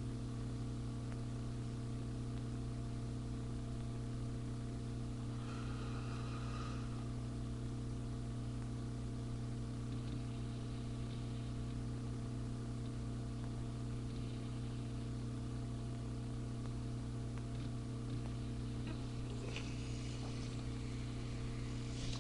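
A steady low hum with a faint hiss under it, unchanging throughout, with a couple of faint brief sounds about six seconds in and near the end.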